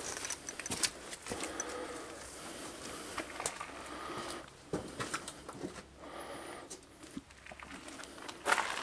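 Footsteps crunching on loose stone and gravel, with clothing rustling, as people walk through a rock tunnel; a louder scuff comes near the end.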